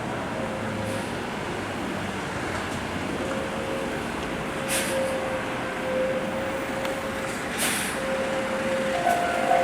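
Heavy double-trailer haul truck running steadily, with two short sharp air-brake hisses about halfway through and again near the end.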